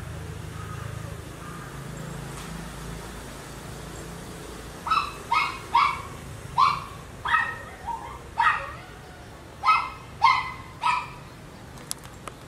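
A small dog yapping off-screen: about ten short, high yaps in quick succession, starting about five seconds in and stopping about a second before the end, over a low steady hum.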